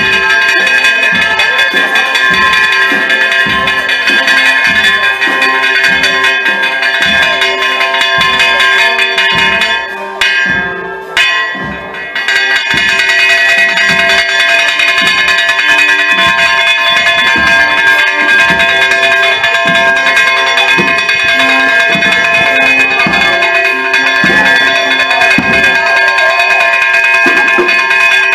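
Church bells ringing rapidly and continuously, struck again and again so that their tones overlap into a steady clangour. The ringing dips for a moment about ten seconds in.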